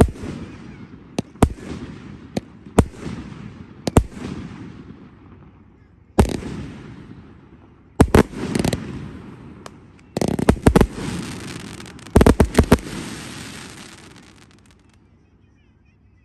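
Fireworks display: a run of sharp aerial shell bangs, single ones about a second apart at first, then a dense rapid volley with a long crackling hiss about ten to thirteen seconds in, dying away near the end.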